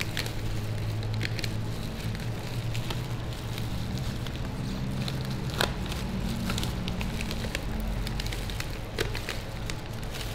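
Crinkling and crackling of a Hershey's chocolate bar's paper-and-foil wrapper as gloved hands unwrap it and break the bar, with a sharper click about five and a half seconds in and another near nine seconds. A steady low hum runs beneath.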